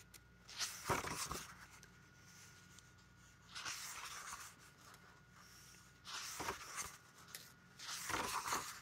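Pages of a thick, oversized hardback book being turned one after another: about four papery swishes, a couple of seconds apart.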